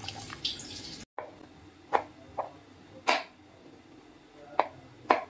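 Soup pouring and dripping from a spoon into a bowl for about a second, then, after a short break, a knife chopping cauliflower on a plastic cutting board: about five sharp knocks at uneven spacing.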